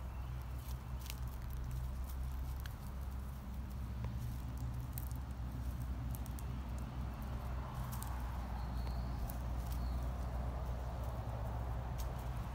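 Dry leaf litter crackling and tapping underfoot now and then, a sharp click every second or few, over a steady low rumble.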